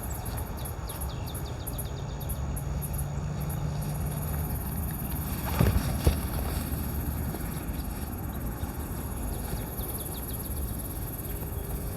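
Outdoor ambience: a steady low rumble with rapid trains of high-pitched chirps near the start and again near the end. Two short knocks come about halfway through.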